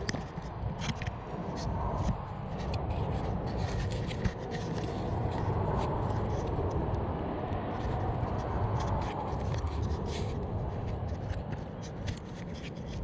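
Hands working on an RC truck's wiring and battery connectors with tape: rustling, scraping and a scatter of small clicks over a steady low rumble.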